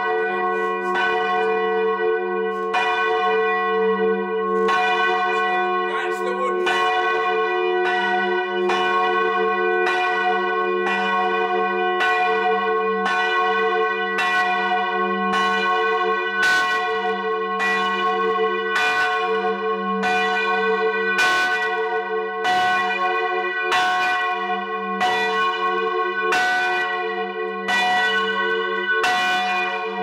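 Church bells ringing, heard close up inside the bell chamber: clapper strikes come about once a second over a steady hum of ringing bronze.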